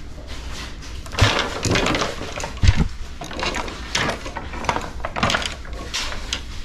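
Handling noise among fishing rods standing in a rack: irregular rubbing and clattering, with two dull thumps about a second and about two and a half seconds in.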